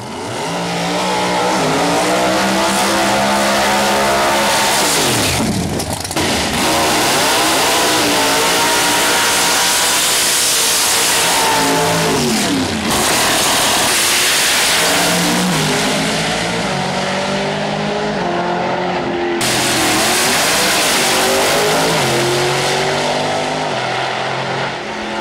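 Pro Modified drag cars' big V8 engines at full throttle, run after run, the engine pitch climbing and then dropping at each gear change; one car does a burnout midway.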